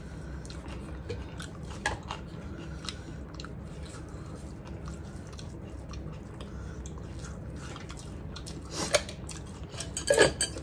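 People chewing and eating rice with their hands, with scattered small clicks. Near the end a metal spoon clinks against a small bowl. A steady low hum runs underneath.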